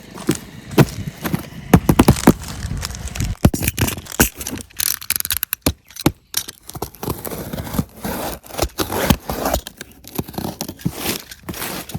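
Packaging being handled and opened by hand: irregular scraping and scratching with sharp clicks and knocks, busiest in the first few seconds and pausing briefly midway.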